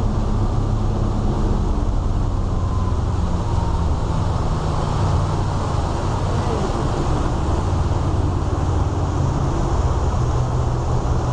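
Sea Ray 340 cruiser's inboard engines running steadily at cruising speed, a constant low drone under a rush of wind and water, heard from inside the canvas-enclosed helm.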